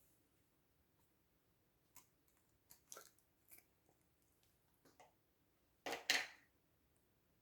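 Slime being handled: scattered soft clicks and squishes, then a louder double squelch about six seconds in.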